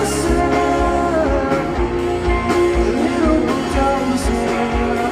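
Live rock band playing, with guitars and a kick drum on a steady beat of about two thumps a second.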